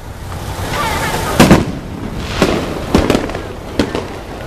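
Aerial fireworks bursting overhead. A hiss builds for about a second and a half, then a loud bang, followed by several more sharp bangs and crackles.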